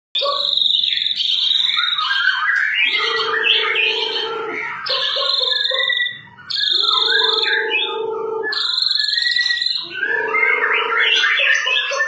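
White-rumped shama singing a long, varied song of clear high whistles, rapid fluttering phrases and lower held notes, with a short break about six seconds in.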